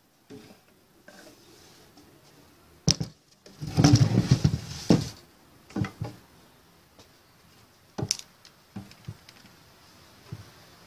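Knocks and clicks from hands at work on a wooden box and tools: a sharp click about three seconds in, a louder burst of knocks and rattling a second later, then a few single clicks.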